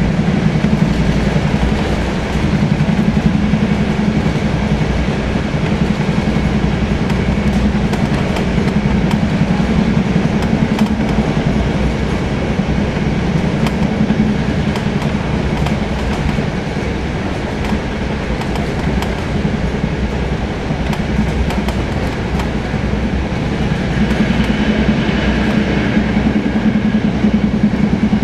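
A passenger train running along the line, heard from inside a carriage: a steady rumble of wheels on rails with many sharp clicks. A faint high whine comes in near the end.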